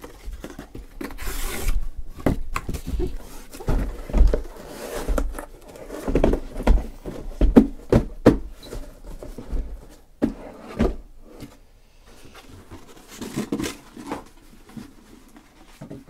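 Cardboard shipping case being handled and unpacked: irregular rubbing, scraping and knocks of cardboard as sealed card boxes are slid out and set down. The handling is busiest for about the first ten seconds and lighter after that.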